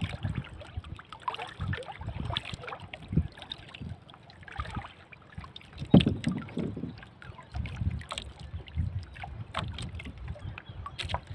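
Water lapping and slapping against the hull of a small wooden outrigger canoe, with irregular knocks on the wood as a handline is hauled in by hand; the sharpest knock comes about six seconds in.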